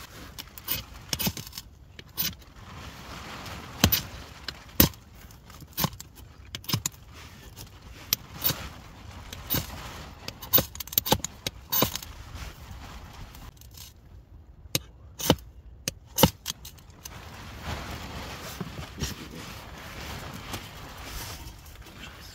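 A ferro rod (fire steel) struck again and again with a knife to throw sparks onto tinder: a couple of dozen sharp, short scrapes at uneven intervals, with quieter rustling in the last few seconds.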